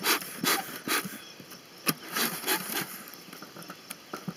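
Bee smoker bellows being pumped: repeated short puffs of air hissing through the fire pot, about two or three a second with a brief pause, followed near the end by a few light metallic clicks of the smoker's lid.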